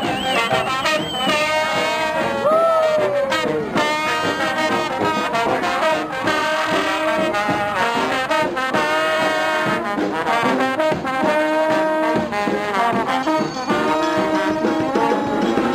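Brass band music led by trombones and trumpets, with trombone slides bending notes up and down.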